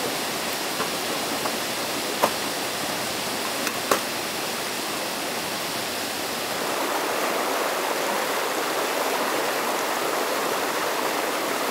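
Steady rushing of flowing water, like a stream, getting a little louder about halfway through, with two sharp clicks in the first four seconds.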